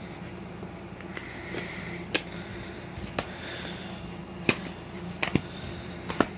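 Sharp plastic clicks and taps from a fold-out DVD box set with clear plastic disc trays being handled and folded shut: about six separate clicks spread over several seconds, over a steady low hum.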